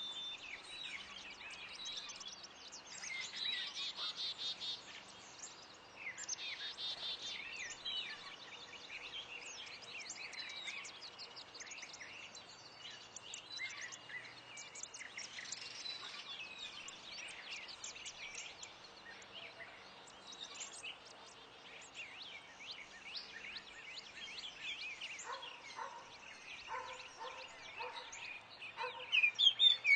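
A chorus of songbirds chirping and singing, many short high calls overlapping, with two rapid trills early on and a series of lower, evenly repeated notes near the end.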